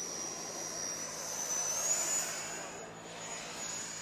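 Freewing Eurofighter Typhoon's 90mm electric ducted fan whining in flight, with a rushing sound of air. The whine steps up in pitch about two seconds in, as the rushing swells and then eases off.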